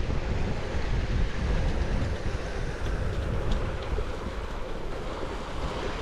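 Wind buffeting the microphone during a bicycle ride: an uneven low rumble over a steady rushing noise, with a few faint ticks.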